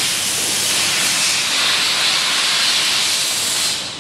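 Compressed air hissing steadily and loudly, with a short dip near the end.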